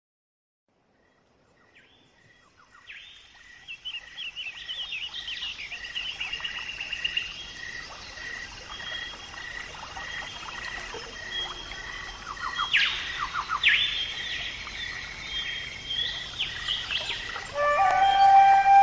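Several birds chirping and trilling, one repeating a short note about twice a second, starting after about two seconds of silence. Music with steady held notes comes in near the end.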